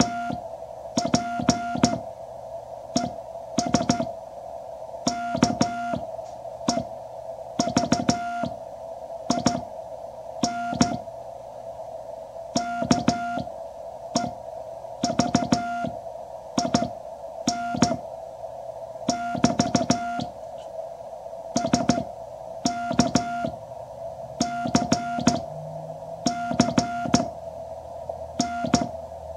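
Morse code (CW) sent by hand on a wooden straight key through a QRP Labs QCX transceiver. The rig's single-pitched sidetone beeps out groups of dits and dahs, and the key clicks sharply as each element starts and stops, over the receiver's steady hiss.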